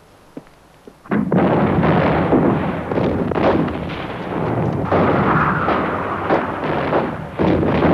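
Loud battle sound effects of artillery and gunfire: a sudden barrage starting about a second in, running on as a dense rumble of shell bursts and shots with heavier blasts along the way.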